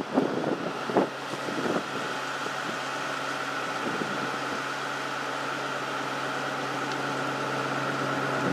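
Steady roadside hum of vehicles with a constant high whine, and a few short louder sounds in the first two seconds.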